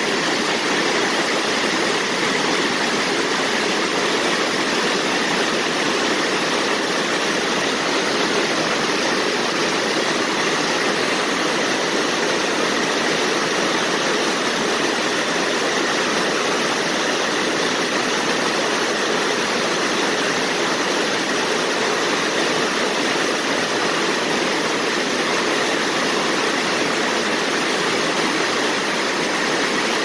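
Water rushing steadily over a low spillway weir, a constant even roar with no break.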